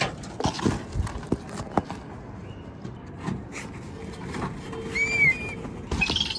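Black kites moving in an aviary: a run of sharp knocks and wing flaps in the first two seconds, then a short whistled call that rises and falls about five seconds in, with another brief call near the end.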